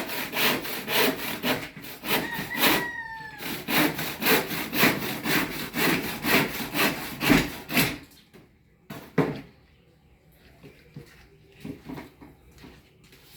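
Hand saw cutting through wood in quick back-and-forth strokes, about three a second, which stop about eight seconds in; a couple of single knocks follow. A brief high call that falls in pitch cuts across the sawing near the three-second mark.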